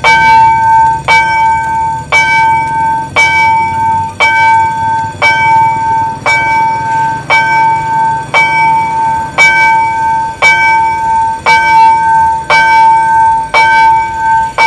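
Level-crossing warning bell ringing while the crossing signals are active, struck about once a second, each strike ringing on into the next.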